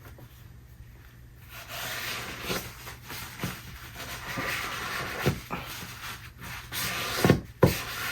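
Rubbing and scraping of hands and objects on a tabletop, with several light knocks that come closer together near the end.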